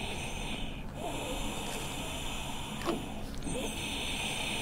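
Laboured, wheezy breathing of a child in an asthma attack, a breath about every two seconds. One sharp click near the middle.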